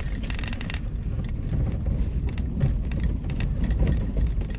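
A vehicle being driven along a road: a steady low rumble of engine and road, with a thick patch of rattling in the first second and fine clicks and rattles throughout.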